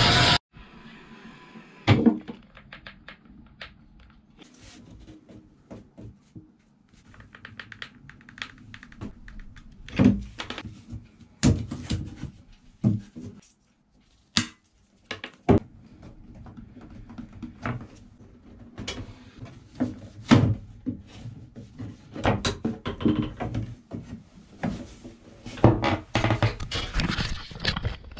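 Irregular thunks, knocks and light clatter of hand work in a small, enclosed room. The loudest knocks come about ten, eleven and twenty seconds in, with quieter rattling in between.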